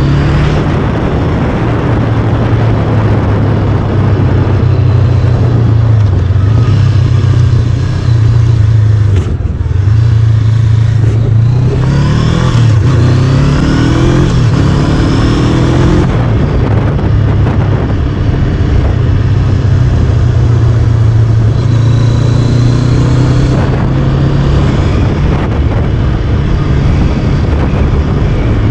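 Motorcycle engine running under way, heard from the bike with wind noise on the microphone. About twelve seconds in, the engine note rises in several short steps as the bike accelerates up through the gears, then settles back to a steady cruise.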